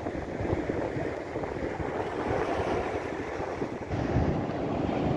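Waves washing up on a sand beach, with wind buffeting the microphone. The wash dips briefly a little before four seconds in, then comes back louder.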